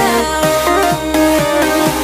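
Background electronic pop music with a steady beat and sustained synth notes.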